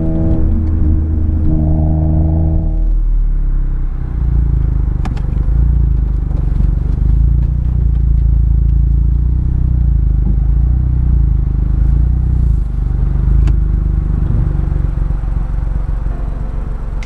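Smart car heard from inside the cabin while driving: a steady engine-and-road drone with even tones for the first few seconds, then a heavy low rumble with an occasional click.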